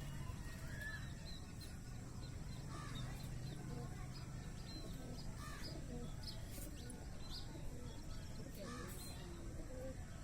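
Crows cawing: a few harsh calls spaced a few seconds apart over steady background noise.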